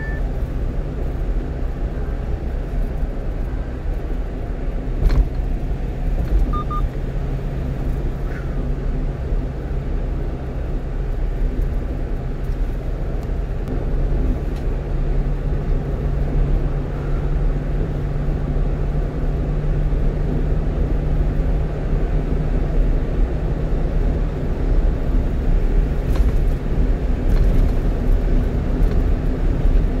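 Inside the cab of a one-ton truck cruising on the expressway: a steady low rumble of engine and tyre-road noise. The engine hum rises a little in pitch about halfway through.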